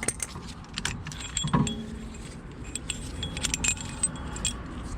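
Small metal pieces of a brake caliper piston compression tool kit clinking and jangling together as they are handled, in a scatter of sharp, ringing clinks.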